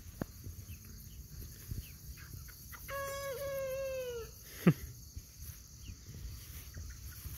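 Young Freedom Ranger chickens on pasture: a cockerel gives one drawn-out crowing call of about a second and a half, sagging slightly in pitch, about three seconds in. Just after it comes a short, sharp squawk that sweeps downward, the loudest sound, with faint chirps and clucks around them.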